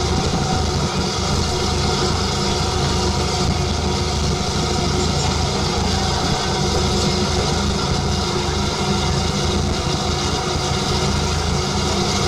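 Small steam locomotive of the Fort Wilderness Railroad, No. 4, standing with steam up, giving off a steady hiss and hum.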